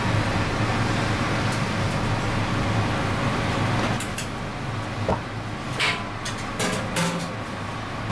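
A large aluminium pot boiling hard on a gas burner: a steady rushing roar with a low hum. About halfway through it drops a little, and a metal ladle clinks against the pot several times while skimming.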